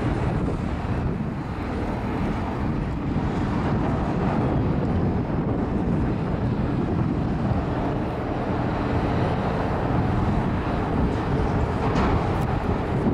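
A small river patrol boat's engine running with a steady low rumble as the boat pulls away from the quay and turns.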